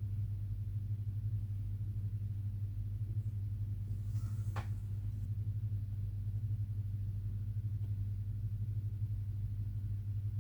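A steady low hum, with one faint brief click about four and a half seconds in.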